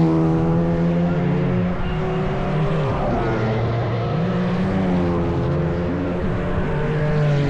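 Racing car engines running at high revs, their pitch dipping and climbing again as the cars shift gears and pass.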